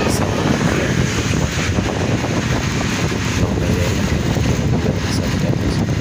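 Steady wind rushing over the microphone of a moving motorcycle, with a dense low rumble of the ride underneath.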